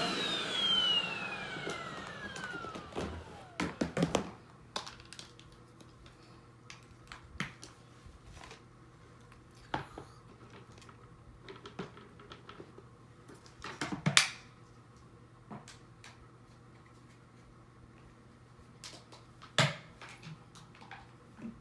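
Upright vacuum cleaner motor spinning down after being switched off, its whine falling in pitch over the first three seconds. Then scattered clicks and knocks of plastic being handled and set down, the loudest a few seconds in, about midway and near the end.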